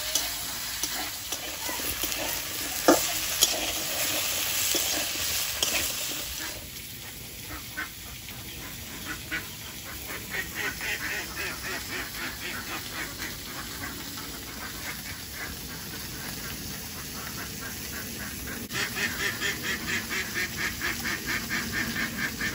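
Potatoes, onion and chilli sizzling in oil in a steel wok, with the clicks of a metal spatula stirring them, for about the first six seconds. Then the frying fades and a bird calls in a rapid, even run of calls, about three a second, louder for the last few seconds.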